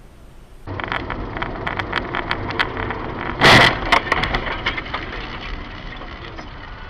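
A car crash picked up by a dash cam: vehicle noise with sharp cracks, then one loud crunching impact about three and a half seconds in, followed by more cracking and clattering that slowly dies down.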